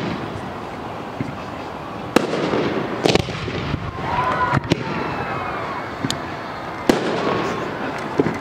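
Aerial fireworks going off: a string of sharp bangs a second or two apart, the loudest a little past two seconds in and near seven seconds.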